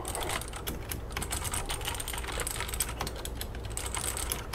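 Typing on a mechanical keyboard with Cherry MX Blue switches fitted with WASD 50A rubber O-rings: a quick, steady run of many keystroke clicks.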